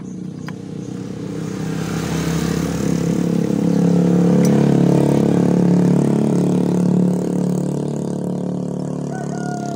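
A motor vehicle's engine passing by: a steady engine hum that swells over the first few seconds, is loudest midway, and fades after about seven seconds. A light click sounds about four and a half seconds in.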